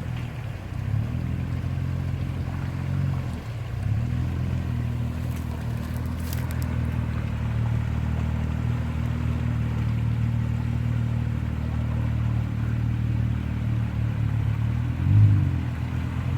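Engine of a 4x4 vehicle running steadily at low revs, with brief throttle blips about three and a half seconds in and near the end.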